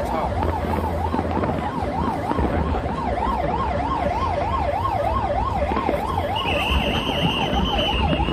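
Korean 119 ambulance siren in a fast yelp, its pitch sweeping up and down about three times a second without a break. A steady high tone joins it about six and a half seconds in.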